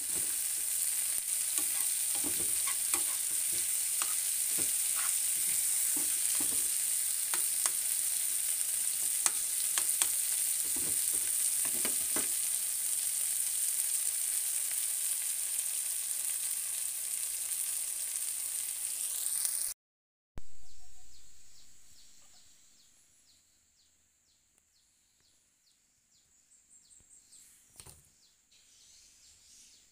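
Tadpoles sizzling as they fry in oil in a wok, with a spatula scraping and knocking against the pan through the first dozen seconds. The sizzle cuts off abruptly about two-thirds through, leaving quiet room sound with a single faint knock near the end.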